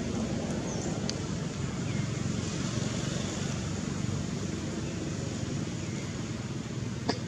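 Steady low outdoor background rumble, with a few faint, brief high chirps and one sharp click near the end.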